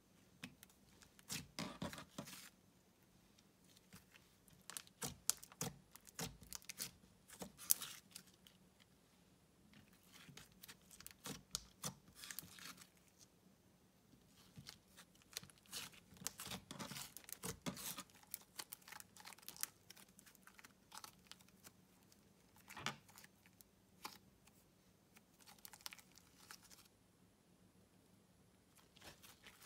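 A thick white slime being stretched and pulled apart by hand, giving bursts of soft crackling and tearing with short quiet gaps between them.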